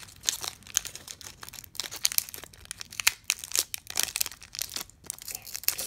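Foil wrapper of a Pokémon Evolutions booster pack crinkling as it is handled: a continuous run of irregular, sharp crackles.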